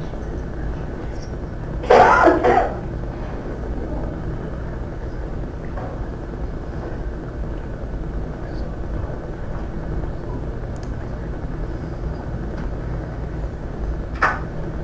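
A person coughs two or three times in quick succession about two seconds in, over a steady low room hum. There is a brief sharp sound near the end.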